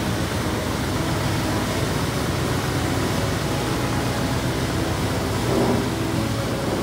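Steady drone of a ferry underway: the engine hum mixed with rushing wind and churning wake water.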